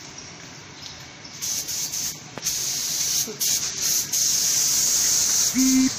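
Compressed air hissing from a paint spray gun: short bursts at first, then held steady for about three seconds. A short low beep comes near the end.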